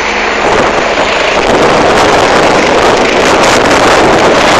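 Helicopter lifting off close by: a loud rushing roar of rotor downwash buffeting the microphone over the rotor and turbine noise, growing louder about a second and a half in.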